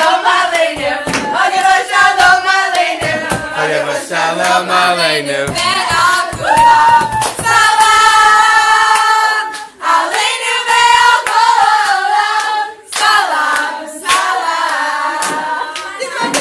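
A group of young women singing together, with hand clapping throughout.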